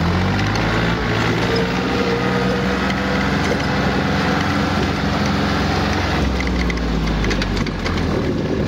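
Yanmar F215D compact tractor's diesel engine running steadily as the tractor drives in second gear, an even engine drone.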